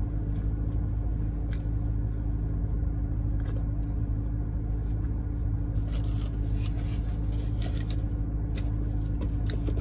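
Steady low hum of a car idling, heard inside the cabin, with brief crackly chewing and mouth sounds every second or two as wings are eaten.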